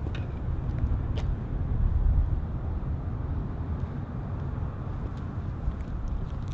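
Steady low rumble of outdoor vehicle noise, with a faint click about a second in.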